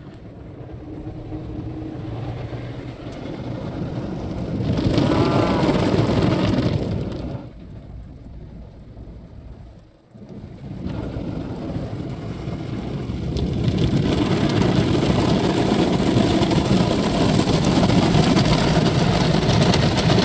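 Automatic car wash machine working over a car, heard from inside the cabin: rushing spray and machinery noise. It swells, dies down about ten seconds in, then builds again and stays loud as water sheets across the windshield.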